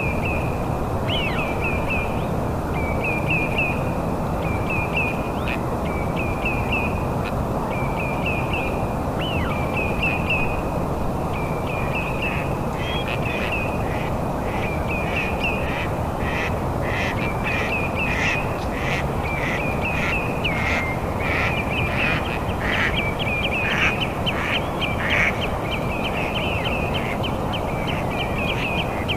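Birds calling: short chirping calls repeat about once a second, then thicken into a denser run of sharp chirps in the second half, over a steady rush of background noise.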